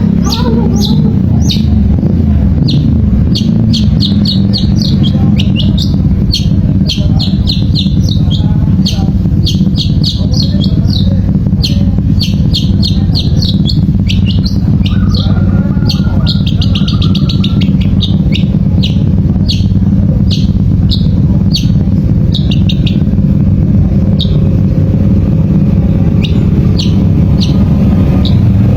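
Long-tailed shrike singing in quick runs of short, sharp, high notes, broken by brief pauses, over a loud steady low rumble.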